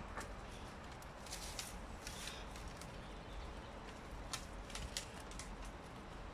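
American bully dog biting and tugging at the woody stems of a small tree: scattered crackles and snaps of stems with rustling leaves, over a steady hiss.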